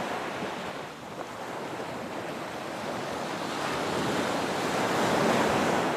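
Ocean surf washing onto a beach: a steady rush of breaking waves that swells toward the end, with some wind on the microphone.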